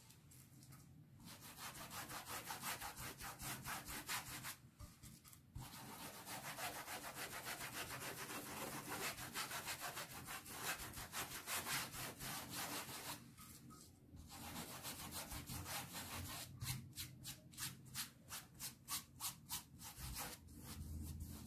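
A paintbrush scrubbing diluted fabric paint into a terry-cloth hand towel: quick back-and-forth strokes of the bristles rubbing on the fabric, in runs broken by a few short pauses.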